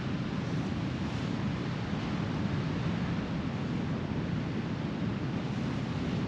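A steady, even rushing noise with no clicks, knocks or voices in it.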